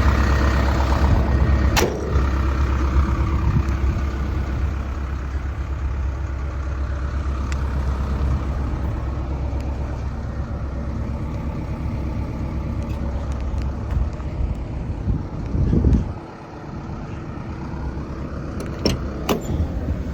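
Diesel engine of a Kobelco SK210LC-10 excavator, a Hino, running steadily, with a few clicks and knocks. About sixteen seconds in there is a louder knock, and the low rumble then drops suddenly.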